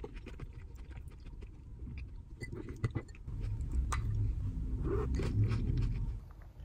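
Eating sounds: a wooden spoon clicking and scraping against a ceramic cup, with chewing. Under the clicks, a low rumble grows louder about halfway through and stops shortly before the end.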